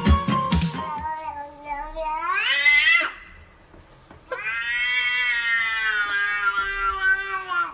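A cat meowing in two long, drawn-out calls. The first starts about a second in and climbs sharply in pitch at its end. The second starts about four seconds in, is held for about three seconds and falls slightly in pitch. Music ends within the first second.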